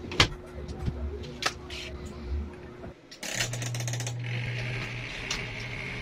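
A few clicks and knocks, then about three seconds in the spin-dryer motor of a Fujidenzo twin-tub washing machine starts and runs with a steady hum, joined about a second later by a higher whirr as the spin basket comes up to speed.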